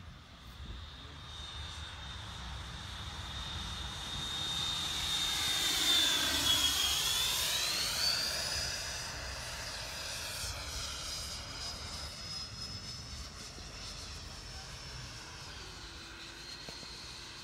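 A 105 mm electric ducted-fan jet, an HSD F-16 Thunderbird model on a 12-cell battery, flying past with a high whine. The whine swells to its loudest about six seconds in as the jet passes closest, dips and then climbs in pitch, and then settles fainter.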